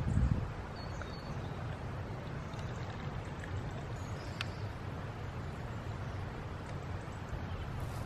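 Steady low outdoor rumble, louder for the first half second and then even, with a few faint high bird chirps and a small click about four seconds in.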